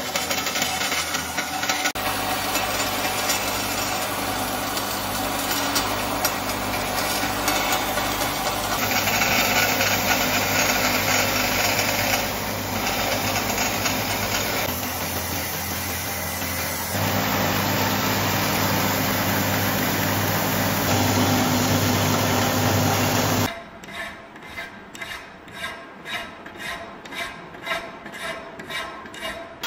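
Power grinding of a leaf-spring steel knife blank, starting on a belt grinder, running steadily through several edited takes. About 23 seconds in it changes to a hand file rasping along the blade's edge, about two strokes a second.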